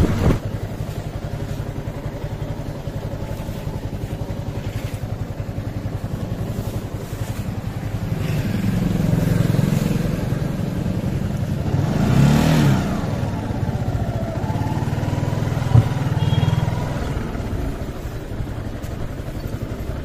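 Yamaha R15's single-cylinder engine running at low speed while the bike is ridden slowly. Its note swells briefly and falls back a little past the middle, and there is one sharp knock a few seconds later.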